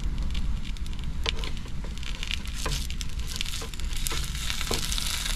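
Sausages sizzling in a frying pan, a steady hiss with scattered crackles and pops.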